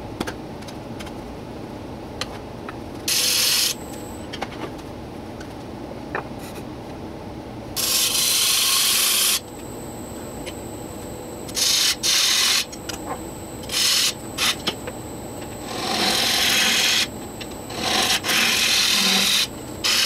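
Laguna Revo 18|36 wood lathe running with a steady hum while a turning tool cuts into a spinning Afghan pine box blank. The cuts come as repeated hissing, scraping passes of about one to two seconds, several in a row, with the longest near the end.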